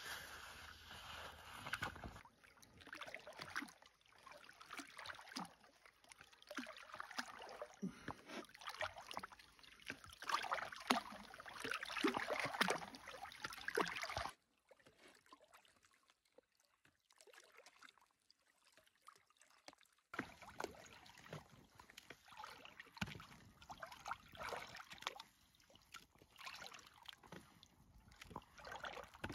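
Water and ice slush splashing and sloshing in a hole cut through lake ice as a wooden pole is worked in it, a string of irregular splashes and clicks. The sound drops almost to nothing for about six seconds in the middle, then the splashing resumes.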